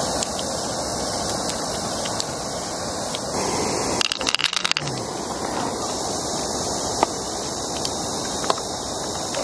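A handful of pearls dropped into an opened river-mussel shell, clicking against each other and the shell in a quick rattle about four seconds in, with a couple of single clicks later, over a steady hiss.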